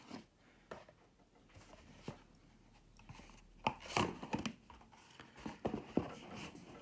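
Rustling and tearing of packaging with scattered light knocks as a cardboard game box is handled, sparse at first and busier from about halfway through.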